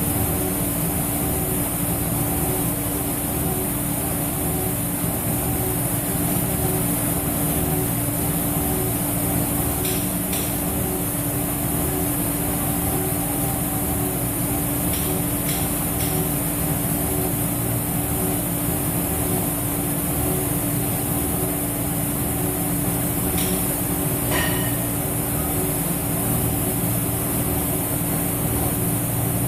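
Mori Seiki NH5000 horizontal machining centre waveform-milling P110 steel with a half-inch five-flute carbide end mill: a steady spindle and cutting tone over a constant hiss, with a few short clicks along the way.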